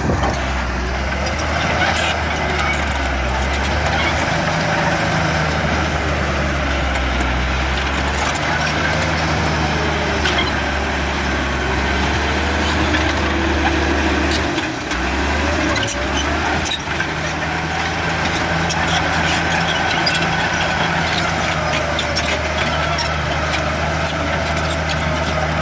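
Komatsu D53-16 bulldozer's diesel engine running steadily, with scattered clicks and clanks over it. The engine note drops briefly about halfway through.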